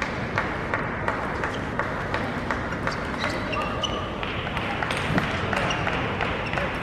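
Sharp clicks of celluloid table tennis balls striking bats, tables and floor, coming every third of a second or so, over the murmur of an arena crowd.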